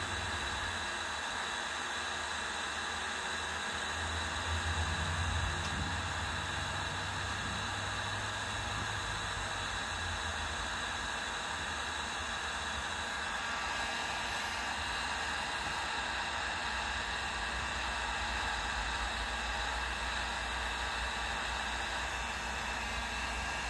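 Milwaukee M18BHG-0 18V cordless heat gun running steadily, its fan making an even whir and rush of air with a faint steady whine.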